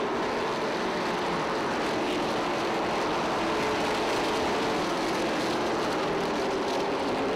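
Pavement late model stock cars racing around a short oval, their V8 engines blending into one steady drone at full throttle, with no single pass-by standing out.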